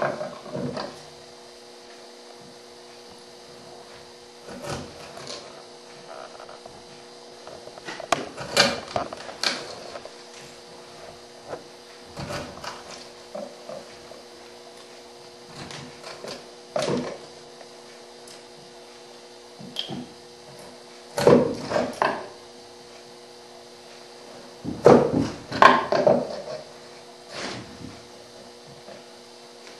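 Bench chisel paring out the waste of a half-blind dovetail socket by hand, cleaning the walls back to the layout line: irregular sharp cutting clicks and short scrapes of steel through wood, in bunches, over a steady low hum.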